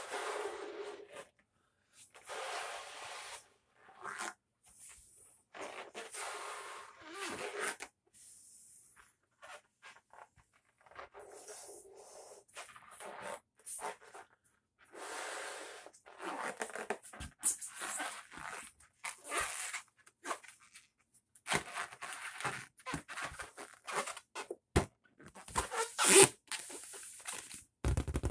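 Purple latex balloon being blown up by mouth: a long breath blown into it every second or two, with quick inhales between. From about halfway on, the stretched latex squeaks and taps sharply under her fingers.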